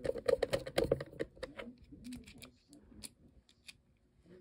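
Hand screwdriver turning a screw down through a washer onto a turntable motor control board mounted on rubber bushings: a quick run of clicks for about the first second, then scattered lighter clicks that die away before the end.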